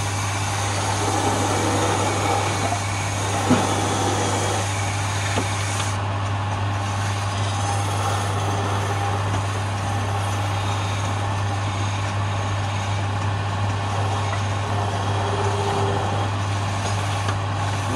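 Wood lathe running with a steady low hum while sandpaper is held against the spinning wooden spindle, adding a continuous sanding hiss. A single sharp knock about three and a half seconds in.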